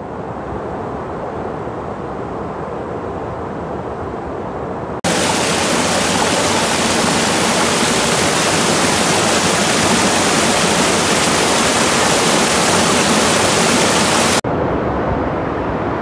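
Small waterfall and stream rushing steadily. About five seconds in, it switches abruptly to a much louder, hissier close-up of water pouring over rock, which cuts back to the softer, more distant rush shortly before the end.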